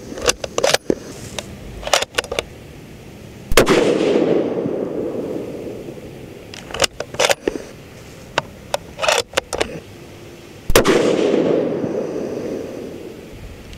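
Two shots from a Sig Cross bolt-action rifle in .308 Winchester, fired unsuppressed through a muzzle brake, about seven seconds apart. Each rolls away in a long echo. Between the shots come quick clusters of metallic clicks as the bolt is worked to eject and chamber a round.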